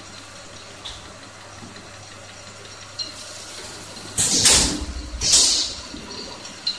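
Automatic L-type sealer and shrink-wrapping machine running with a steady hum. About four seconds in come two loud hissing bursts about a second apart as the film-wrapped box goes through the sealing section, with a short click before and after them.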